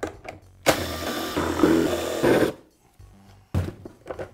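Cordless drill-driver running for about two seconds, backing out a screw from the compressor's plastic motor cover. A single knock follows about three and a half seconds in.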